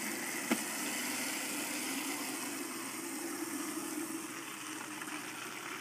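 Steady rush of running water that starts suddenly and stops near the end.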